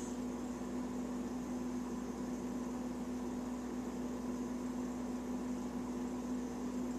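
Steady hum with a constant low tone and even hiss, without any rise and fall.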